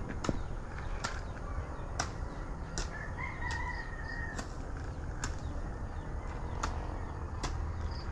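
A rooster crows once, a single call of about a second and a half a few seconds in, over the walker's steady footsteps on a dirt path, a step a little under every second, and a low wind rumble.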